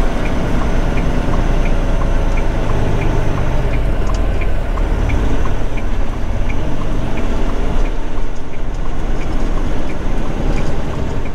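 Semi-truck diesel engine running, heard from inside the cab as the truck pulls away from a stop, with the turn-signal indicator ticking steadily about three times every two seconds.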